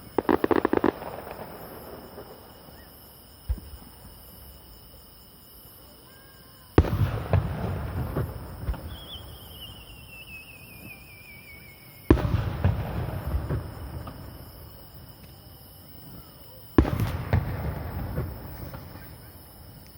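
Aerial firework shells bursting: a quick run of crackling reports in the first second, then three heavy booms about five seconds apart, each with a long rumbling tail as it echoes away.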